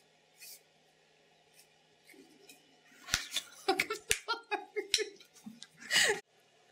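Handling noise from a camping cookware kit: a quiet start, then from about halfway a cluster of clicks, taps and short scrapes, with a louder rasp near the end.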